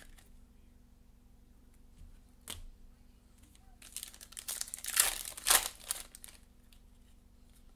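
A trading-card pack's foil wrapper being torn open and crinkled. There is a lone tick about two and a half seconds in, then a crackling rustle around four seconds in, loudest in two sharp rips about half a second apart.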